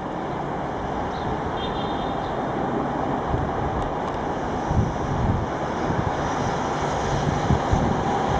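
Electric passenger train approaching on the line, its steady running noise growing gradually louder.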